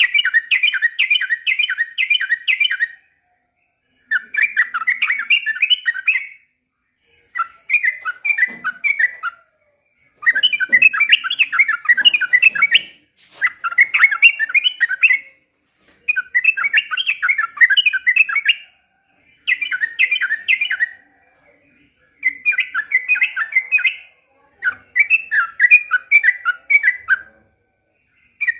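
A yellow-vented bulbul (trucukan) singing loudly in bubbly, chattering phrases of two to three seconds each. It delivers about ten phrases, each followed by a short pause.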